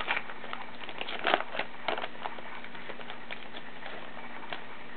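Wrapper of a baseball card pack crinkling as it is opened and the cards are handled: a cluster of short crackles in the first two and a half seconds, then a few scattered clicks.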